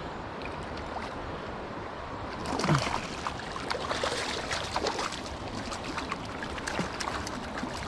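Running stream water, with a flurry of sharp splashes in the middle stretch, about two and a half to six seconds in.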